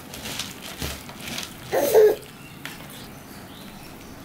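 Light crackly rustling and crunching of dry puffed rice as it is chewed and stirred by hand in a steel plate. About two seconds in, a short loud pitched cry lasting under half a second.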